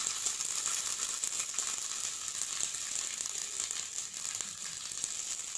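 A single spice-coated potato slice sizzling in hot oil in a frying pan: a steady, even hiss.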